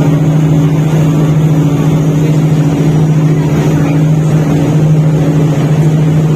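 Motorized bangka (Philippine outrigger boat) engine running steadily at a constant speed, a loud, unchanging low hum.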